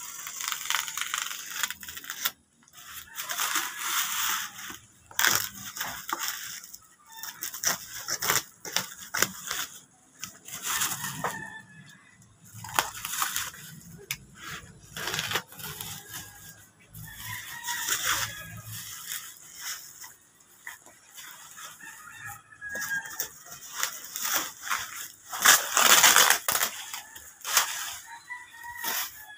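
Bubble wrap and plastic packing tape being torn and pulled off a long cardboard box: irregular crinkling and ripping in bursts of a second or two, loudest near the end as the wrap comes away.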